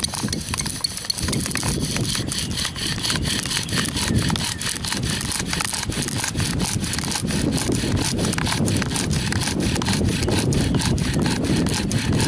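Wooden bow drill in use: the bow sawing back and forth in steady strokes while the spindle grinds against the wooden hearth board, burning in the starting hole for a friction fire.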